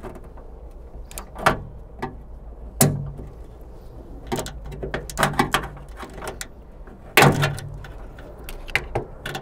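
Plastic wiring-harness clip being pushed and pried out of a 2001–2005 Honda Civic's sheet-metal trunk lid: scattered clicks and knocks, the loudest about seven seconds in.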